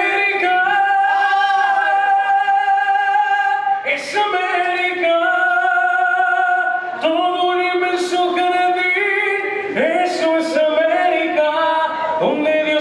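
A man singing through a microphone, holding long notes in about four phrases of roughly three seconds each.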